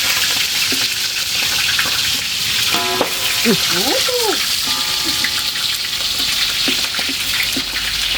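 Food sizzling steadily as it fries in hot oil in a pan, with short clicks of a utensil stirring it.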